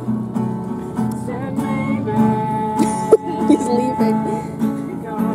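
Music led by a strummed acoustic guitar, with people's voices talking over it.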